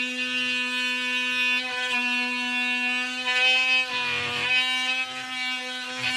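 DeWalt oscillating multi-tool cutting into the base of a cupboard: a loud, steady, high buzz with many overtones. The tone briefly breaks up and roughens about four seconds in.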